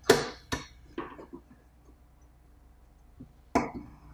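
Sharp clicks and light knocks of the TP7-D thermometer's faceplate being handled and seated onto its housing: three in the first second, then one more near the end.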